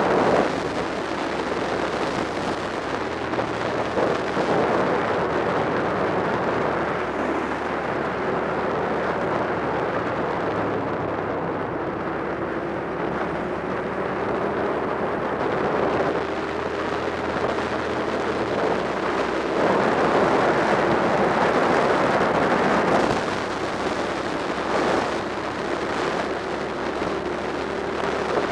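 Motorcycle riding at speed: steady wind rush over the camera mount with the engine's note underneath, its pitch slowly rising through the second half. The wind noise swells louder for a few seconds after the middle.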